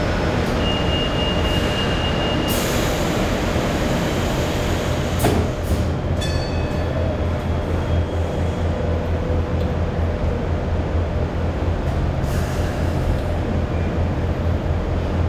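Kawasaki-built Hong Kong Light Rail car running, heard from on board: a steady low rumble and hum. A high steady tone sounds for about two seconds near the start, there is a sharp click about five seconds in, and a brief high squeal follows shortly after.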